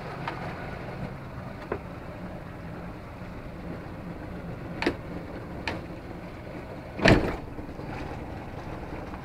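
A MacGregor 26-X's outboard motor running steadily at low speed, its throttle no longer answering the lever. A few sharp clicks, and one louder knock about seven seconds in.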